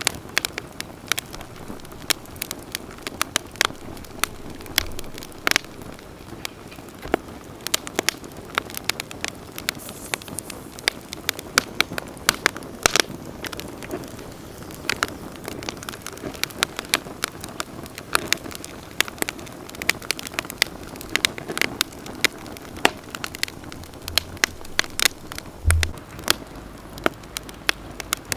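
Wood campfire crackling, with many irregular sharp snaps and pops over a steady low rush of burning flames. There is a brief low thud near the end.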